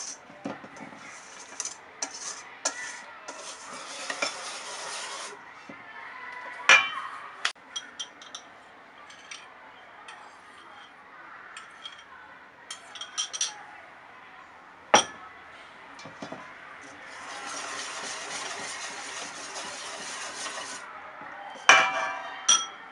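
Wire balloon whisk beating a thick custard mixture in a stainless steel bowl: a steady scraping swish of the wires against the metal in two spells, with several sharp clinks of the whisk striking the bowl between them.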